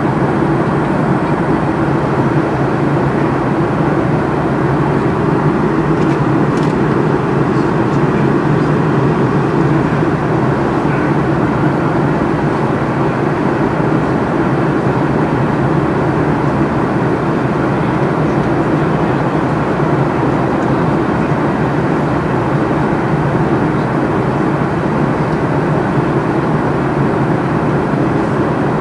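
Steady cabin noise of a jet airliner at cruise: an even rush of engine and airflow noise heard from inside the cabin, unchanging throughout.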